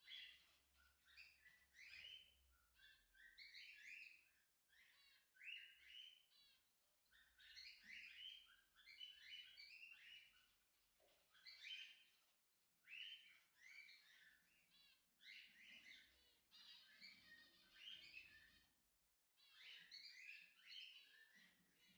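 Zebra finches chirping faintly: a dense run of short calls, one after another, through the whole stretch.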